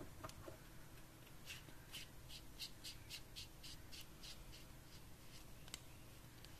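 Faint, quick ticks from a red aluminium Convoy S2+ flashlight being twisted in the hand as its parts are screwed together: about four ticks a second for some three seconds, fading out, then two single sharp clicks near the end.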